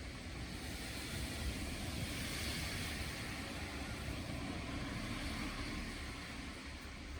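Traffic-like noise, a steady hiss that swells for a couple of seconds and then slowly fades, as of a vehicle passing.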